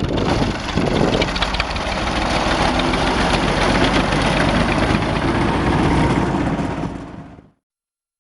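Ursus tractor's engine running as it drives a wheat reaper, a steady mechanical din that fades out near the end.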